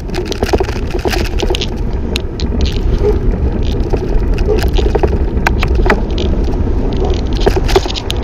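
Wind rushing over the camera microphone while riding a bicycle among traffic, a steady low rumble with many scattered clicks and rattles.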